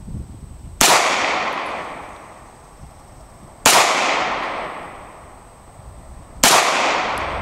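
Beretta pistol fired three times, about three seconds apart, each shot followed by a long echo that fades over about two seconds.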